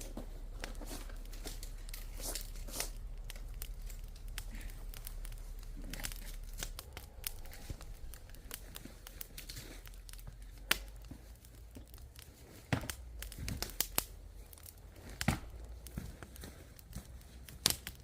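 Sticks or firewood being handled and snapped: rustling and crunching, with a few sharp snaps in the second half.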